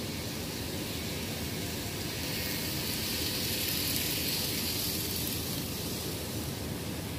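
N-scale model freight train running past on the track: a rush of wheel and motor noise that swells and fades over a steady hiss, loudest about four seconds in as the cars pass closest.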